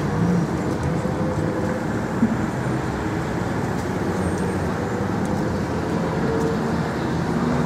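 Steady road traffic noise: car engines and tyres on a nearby street, with a few faint held engine tones.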